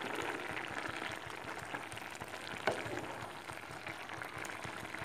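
Raw papaya khar simmering in a pan, a steady bubbling with many small pops, as a wooden spatula stirs and mashes it; one sharper knock about two and a half seconds in.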